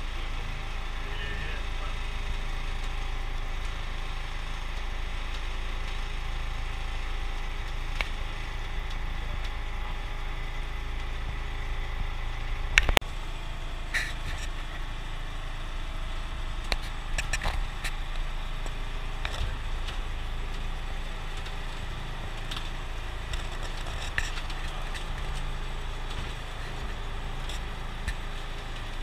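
A boat's motor running steadily as a low rumble, with scattered knocks and clicks on board, the loudest about halfway through.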